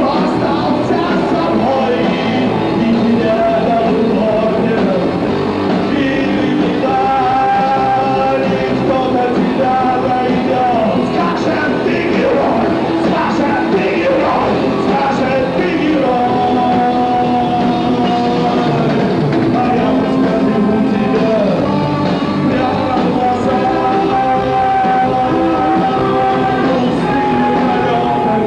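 Live garage rock band playing: a man singing into a microphone over electric guitar and the band, with long held notes.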